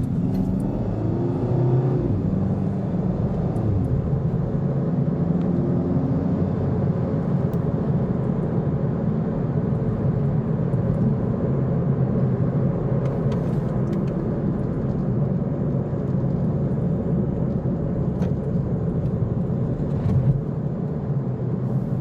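Car road noise heard from inside the cabin while driving: a steady low rumble of engine and tyres, with the engine pitch rising over the first few seconds as the car pulls away and picks up speed.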